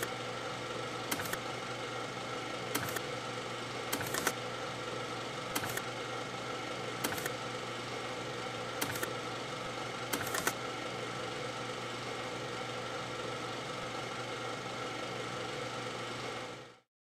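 Title-sequence sound design: a steady mechanical drone of several held tones, with sharp clicks every second or two, some in quick pairs, for the first ten seconds or so. It cuts off suddenly near the end.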